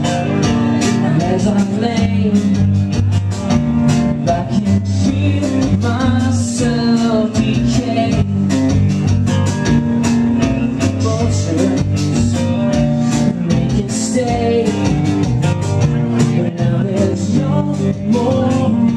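Live indie rock band playing, with electric guitar and a steady drum beat.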